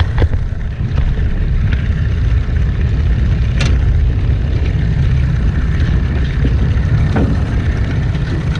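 Steady low rumble aboard a small boat, with a couple of light knocks.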